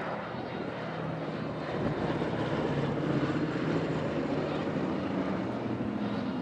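The four radial engines of a B-17 Flying Fortress droning as it flies overhead, swelling louder about two seconds in and holding steady.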